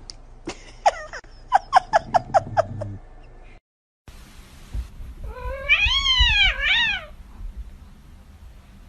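Cats meowing: a quick run of about eight short calls, each falling in pitch, then after a brief break a loud drawn-out meow that rises and falls in pitch, lasting about two seconds.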